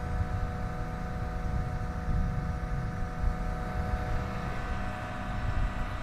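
Heavy farm machinery running: a low diesel engine rumble with a steady whine over it, from a tractor and trailed potato harvester stuck in mud.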